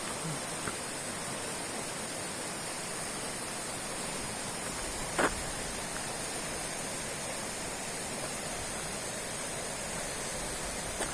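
Roaring river: a steady rush of fast-flowing water. A single sharp click sounds about halfway through.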